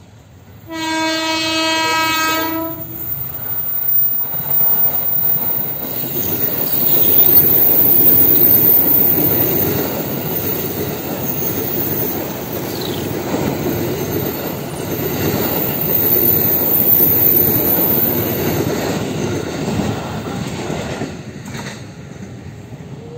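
KRL Commuter Line electric train sounds its horn once for about two seconds as it approaches. It then passes close by with the rumble and clatter of wheels on the rails and a couple of brief high wheel squeals. It is loudest about eight seconds in and fades away near the end.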